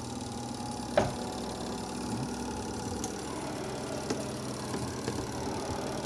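Sharp Aqua Magic twin-tub washing machine's spin motor running with a steady hum, spinning the spin drum: the spin is working again after the lid switch and timer were sprayed with cleaner. One sharp knock about a second in.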